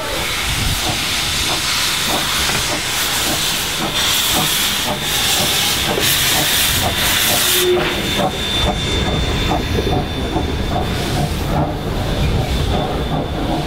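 Steam locomotive, the NZR Ww class tank engine Ww 480, hissing loudly with escaping steam, with irregular sharp beats running through it. A thin high steady tone sounds through the second half.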